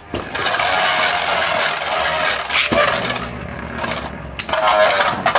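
Two Beyblade Burst spinning tops whirring and scraping against each other in a plastic stadium, with a couple of sharp clacks of collision about two and a half seconds in.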